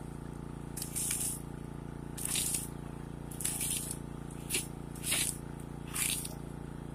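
Car-cutting rescue equipment at work: a steady machine hum with short hissing bursts about once a second.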